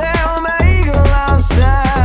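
Upbeat pop music with a sung melody over a steady, heavy bass beat.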